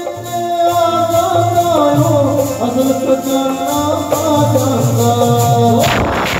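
Live Sikh devotional music: a voice sings a melody over a harmonium, with a drum and a steady jingling percussion keeping the beat. A loud rushing burst sweeps across the sound near the end.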